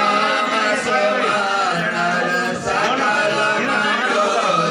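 Male voices chanting a Sanskrit mantra in a steady, sung recitation.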